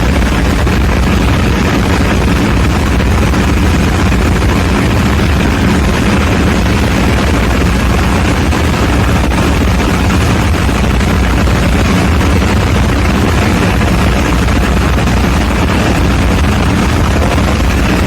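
Diesel generator engine running steadily with a loud, even drone.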